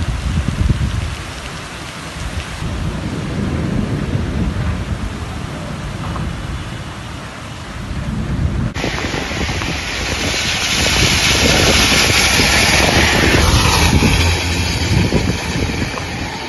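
Storm rain and wind: a steady rushing hiss over a low rumble. About nine seconds in, the sound changes abruptly to a louder, brighter rush of rain.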